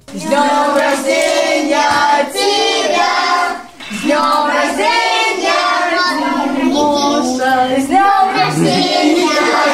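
A group of children and a woman singing a birthday song together, with a short pause for breath about four seconds in.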